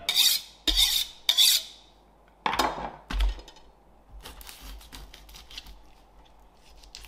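A knife drawn quickly along a honing steel three times, then two more scraping strokes. After that come faint ticks and scrapes as the knife cuts into a whole fish on a wooden cutting board.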